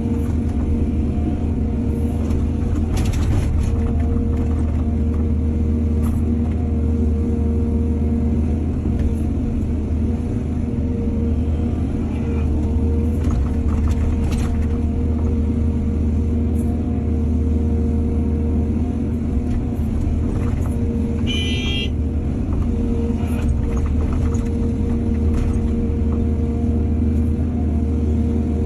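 Excavator's diesel engine running steadily, a deep drone with a constant hum over it. A few sharp knocks come through, and a brief high-pitched squeal sounds about 21 seconds in.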